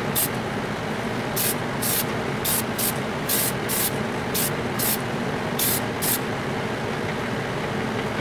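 Testors aerosol spray paint can spraying a light coat in about eleven short hissing bursts, stopping about six seconds in, over a steady background noise.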